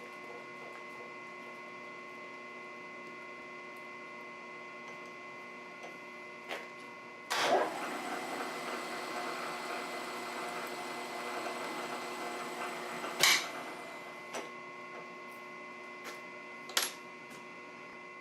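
A machine tool's motor humming steadily, with scattered sharp clicks of metal handling. About seven seconds in, a louder noisy, crackling sound starts abruptly and runs for about six seconds, ending in a sharp click.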